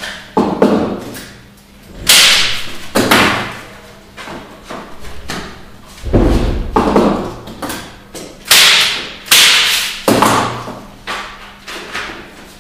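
Staple gun firing staples through canvas into a wooden stretcher bar, about eight sharp clacks spaced roughly a second apart as the canvas is stretched and fastened to the frame.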